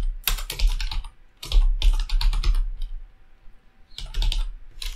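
Typing on a computer keyboard: quick runs of keystrokes with a short pause between runs a little past the middle.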